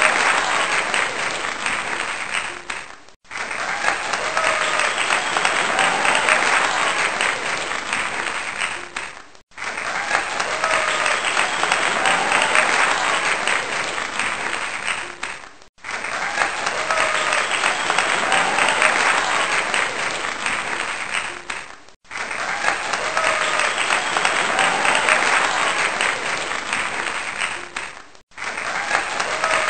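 Crowd applause sound effect looping as a soundtrack: a clip about six seconds long repeats again and again, each time fading into a short gap before starting over.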